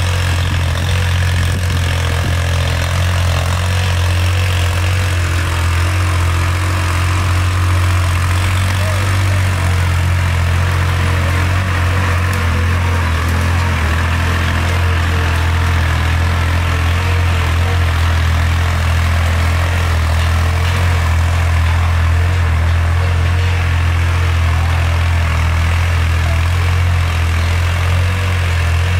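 Farm tractor's diesel engine running steadily with a constant low hum as it pulls a plow through weedy ground.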